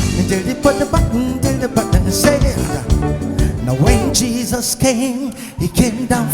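Live African gospel praise band playing, with drums and percussion keeping a beat and a voice singing over it.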